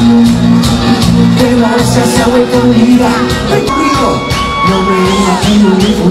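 Live cuarteto band playing an instrumental passage with a steady beat and bass, a long held high note drawn out in the middle that drops off, and the crowd shouting.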